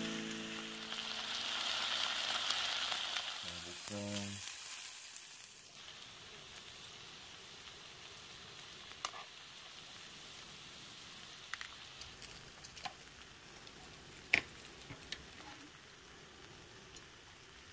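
Pork sizzling on a hot griddle: a loud frying hiss for the first few seconds that drops to a softer steady sizzle after about five seconds, with a few sharp clicks of metal utensils against the griddle and plate.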